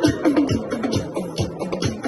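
Dance music with a steady kick-drum beat, a little over two beats a second, crisp high percussion and short sliding tones in the middle range.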